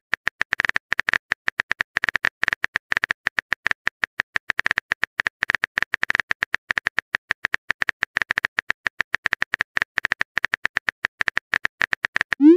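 Texting-app keyboard typing sound: fast, even clicks, about eight a second, as a message is typed out letter by letter, with a short rising tone near the end.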